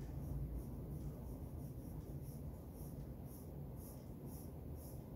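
Pencil lead scratching across drawing paper in short, even shading strokes, about two a second, as hair is shaded in.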